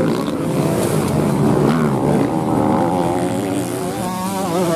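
Racing motorcycle engines revving on a grass track, their pitch rising and falling as the bikes accelerate.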